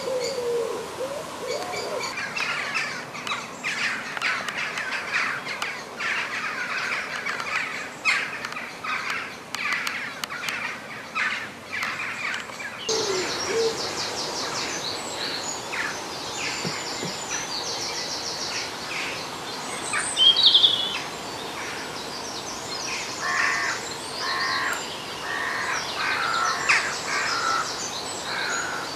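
Dawn chorus of wild birds: several birds chirping and trilling together, with a low wavering call at the very start and one loud high call about 20 seconds in.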